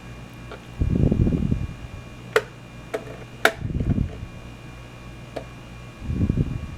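Handling noise from multimeter test probes being pressed and shifted against a battery's terminals: two sharp clicks and a few low rustling bumps, over a steady faint electrical hum.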